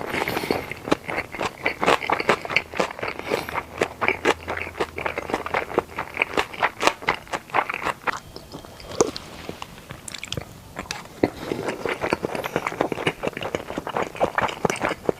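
Close-miked chewing and biting of sushi, with wet, crunchy mouth clicks. There is a quieter pause in the middle.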